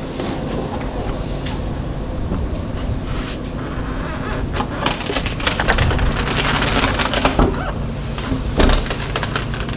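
Handling noise from a large solar water heater pressure tank being turned and rolled over on a tiled floor: irregular knocks and clicks, with a longer scraping rustle about six seconds in, over a steady low hum.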